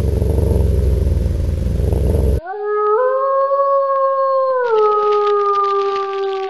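A low rumbling noise, cut off about two and a half seconds in, then a single long wolf howl as an intro sound effect. The howl rises, steps down in pitch a little before five seconds in, and holds.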